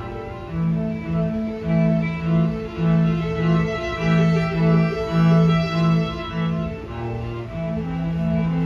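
String quartet playing live, the cello bowing short swelling low notes about twice a second under sustained violin lines, then settling into a long held low note near the end.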